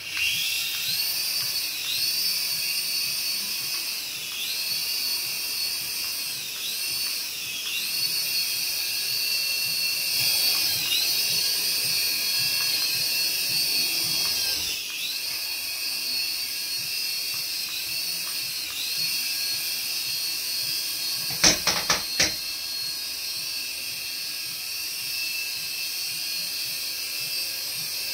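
Small Fakon toy RC helicopter with stacked twin rotors, its electric motors whining high, the pitch rising and falling every few seconds as the throttle changes. A quick cluster of sharp knocks comes about three-quarters of the way through.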